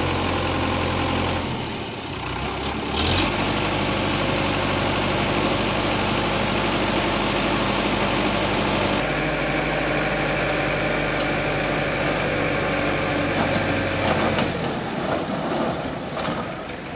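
Sonalika RX 55 HP DI tractor's diesel engine running steadily while its hydraulics tip the loaded trolley. The engine note shifts in pitch about three seconds in and again about nine seconds in, then gets quieter near the end.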